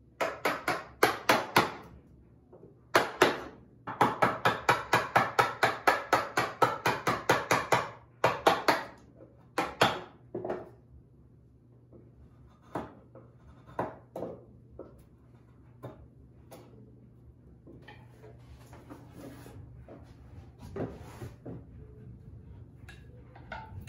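Wooden mallet striking a chisel in quick runs of sharp blows, about five a second at the fastest, chopping a green white oak leg down to a cylindrical tenon. The blows thin out to scattered single strikes, followed by faint scraping and light knocks of hand paring.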